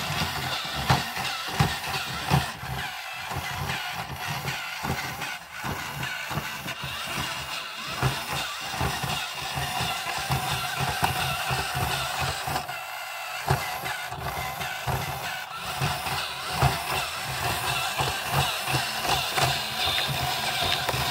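Insect-a-zoid toy robot walking: its small electric motor and plastic gear train run with a steady whine, and its plastic legs tap on the wooden floor in a quick, uneven rhythm. The motor pinion gears are set clear of the crown gear, so the gears run without rubbing.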